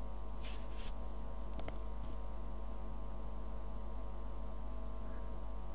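Steady electrical hum with a few faint clicks, and two brief soft hisses about half a second in.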